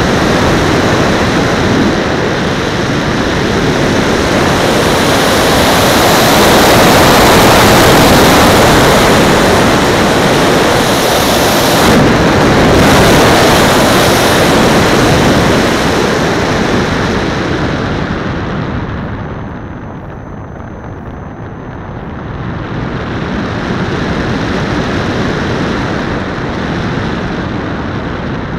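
Airflow rushing over the microphone of a camera mounted on the wing of a radio-controlled glider in flight, a loud, steady roar of wind noise with no clear engine note. It eases off for a few seconds about two-thirds of the way through, then builds again.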